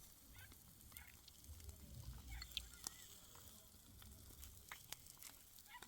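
Near silence: faint outdoor background with a low hum and a few scattered faint clicks.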